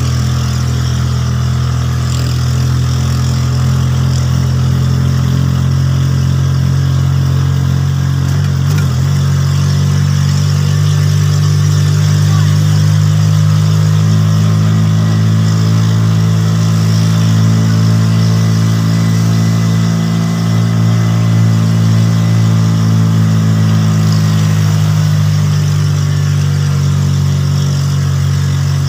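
A vehicle engine running steadily with a low hum, its pitch shifting slightly a few times.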